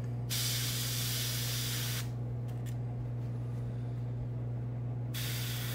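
Airbrush spraying paint through a scale stencil: a hiss of about a second and a half just after the start, and a second hiss starting near the end. Under it runs a steady low hum from the air compressor.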